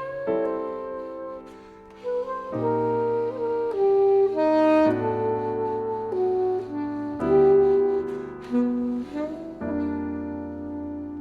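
Alto saxophone playing a melodic line of held and moving notes over piano chords, in a chamber piece mixing jazz and classical styles.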